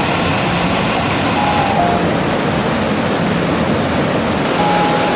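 Mountain stream rushing and cascading over granite rocks in small waterfalls, a steady, loud white-water noise.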